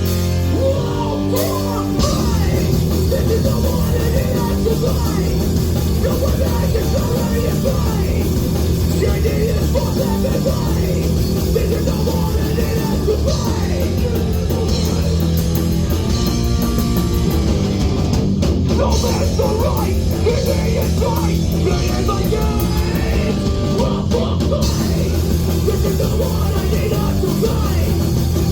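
Hardcore punk band playing live: distorted guitars, bass and drums with shouted vocals.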